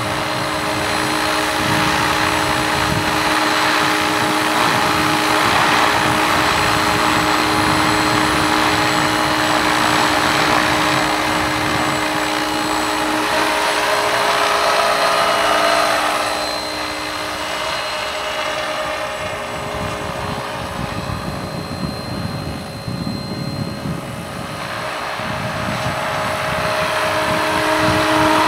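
SAB Goblin Urukay electric radio-controlled helicopter in flight: the steady whine of its motor and drivetrain with the whoosh of the main rotor blades. It fades a little over halfway through as the helicopter moves away, and swells again near the end as it comes back close.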